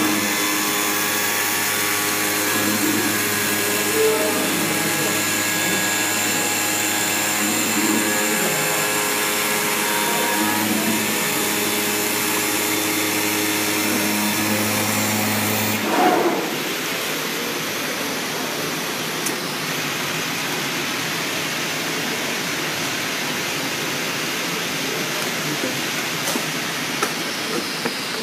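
AOKE CNC flatbed digital cutter running while it cuts a foam board: a steady machine whine and hiss with several held tones. About halfway through there is a short bump, after which the lower tones stop and a steady hiss carries on, and near the end a high tone slowly falls.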